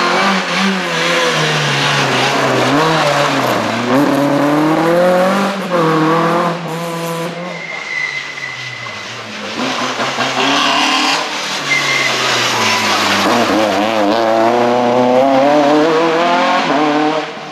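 Two small rally cars, a Renault Clio and then a Citroën C2, passing at full speed on a tarmac stage. Their engines rev high, with the pitch falling and rising through gear changes and lifts, and there are short tyre squeals between the passes.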